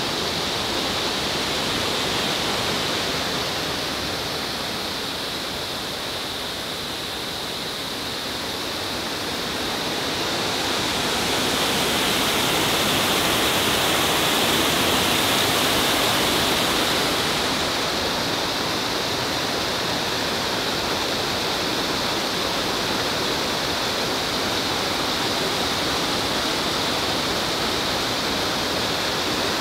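Garden waterfall pouring steadily, a dense rushing of falling water that swells louder for several seconds around the middle.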